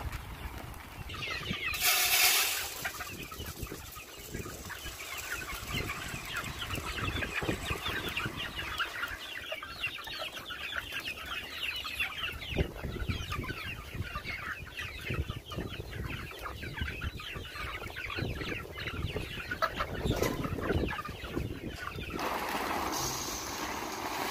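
A flock of chickens clucking and chattering without a break. Dry feed pellets are poured from a paper sack, once about two seconds in and again near the end as a rattling rush into a metal feeder.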